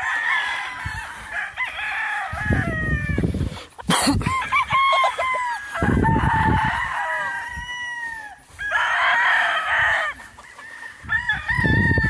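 Many gamefowl roosters crowing across the yard, their calls overlapping one after another. Three stretches of low rumbling noise come and go underneath, and there is one sharp knock about four seconds in.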